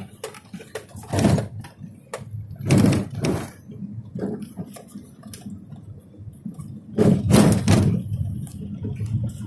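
Handling and wind noise on a phone microphone: a few loud, rumbling noise surges with scattered clicks and knocks between them.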